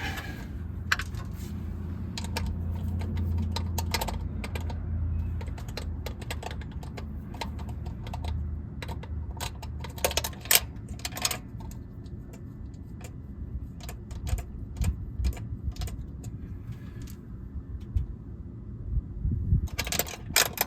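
Irregular light metallic clicks and rattles of hand tools and parts as a carburetor is unbolted from a V8's intake, over a low steady hum that fades out about ten seconds in.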